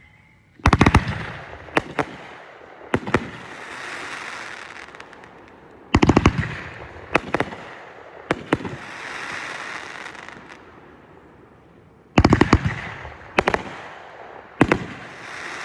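Consumer fireworks going off: sharp bangs in three clusters about five to six seconds apart, each followed by a few seconds of crackling, fizzing hiss.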